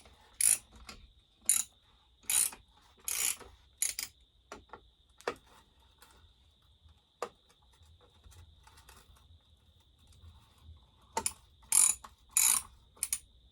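Ratchet wrench clicking in short bursts as bolts are tightened down: a run of quick strokes in the first few seconds, a lull with scattered clicks, then a few louder strokes near the end.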